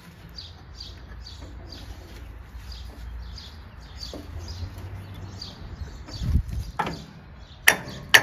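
A bird chirping over and over, about twice a second. Near the end come a few sharp metallic clinks and knocks from hand work on the lawn tractor's belt pulley.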